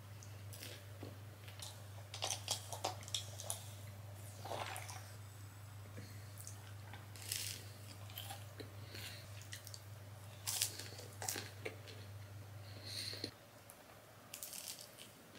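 A person biting into and chewing fried chicken nuggets, a run of irregular short chewing and biting sounds. A low steady hum underneath cuts off about 13 seconds in.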